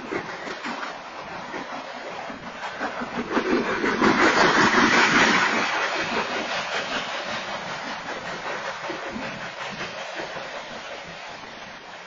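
Freight train's coal hopper cars rolling past, with a steady clatter and rumble of steel wheels on the rails. It swells loudest about four to five seconds in, then slowly fades.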